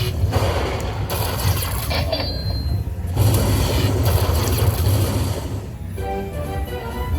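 Lightning Link slot machine during a free-spin bonus. About six seconds of dense hissing, rushing noise over a low hum, then a chiming tune of short notes from the machine begins near the end.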